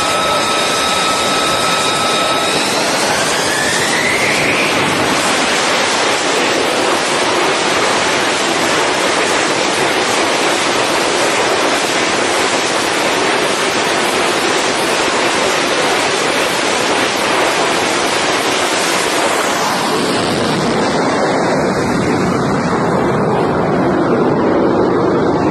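F-35C's single turbofan jet engine spooling up on the carrier catapult: its whine rises in pitch a few seconds in, then gives way to a loud, steady rush of jet noise at full power. Near the end the noise shifts and thins as the jet is launched off the deck.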